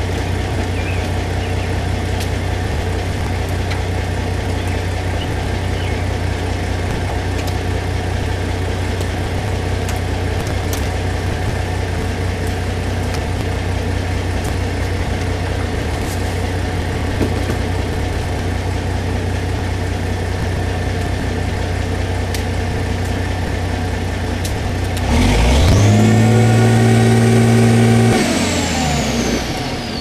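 An engine idling steadily, then revved up sharply about 25 seconds in, held high for about three seconds and let back down near the end.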